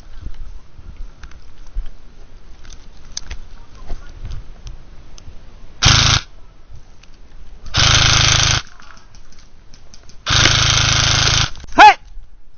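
Airsoft rifle firing three full-auto bursts close by: a short one, a longer one, and the longest, each a dense rapid buzz that starts and stops abruptly. A short sharp sound follows right after the last burst, with low rustling between the bursts.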